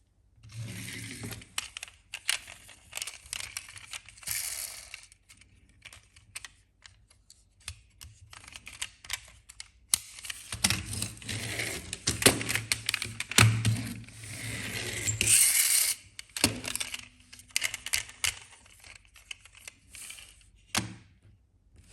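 Irregular clicking, clinking and rattling of small hard objects, with stretches of hiss and a brief low hum in the second half.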